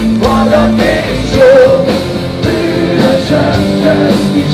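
Rock band playing live with a voice singing the melody over it.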